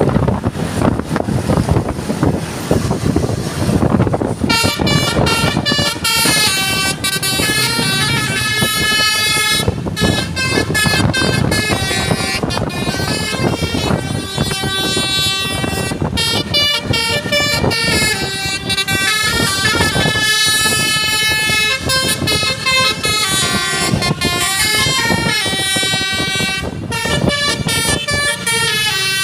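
A bus's 12-trumpet basuri telolet air horn playing a melody, several tones sounding at once and stepping up and down in pitch. It starts about four seconds in, after a few seconds of vehicle noise, and carries on almost to the end.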